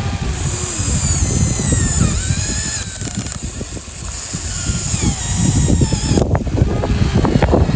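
Small electric motors of a radio-controlled model excavator whining at high pitch, the whine sliding downward as they take load, twice, over a steady low rumble.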